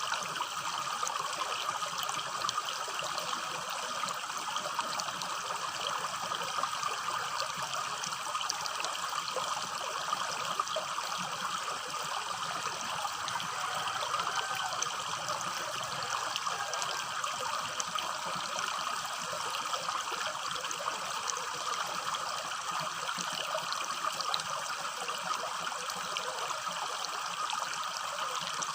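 Small stream trickling steadily over stones, a continuous babbling rush of water.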